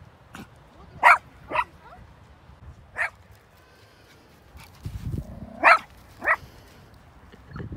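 Small dog barking in short, sharp, high yaps, a handful of them spaced a second or two apart. A low rumble comes in briefly about five seconds in.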